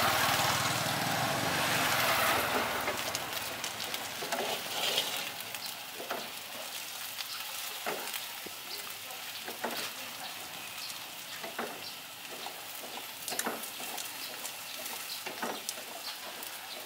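Yellow crepe batter and bean sprouts sizzling in a hot wok. The sizzle is loudest for the first two or three seconds, then settles to a lighter hiss with scattered crackles.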